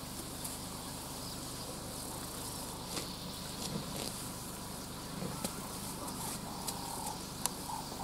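Savanna ambience of insects chirring, a steady high hiss, with a few sharp clicks or snaps scattered through it and a short steady whistle-like tone near the end.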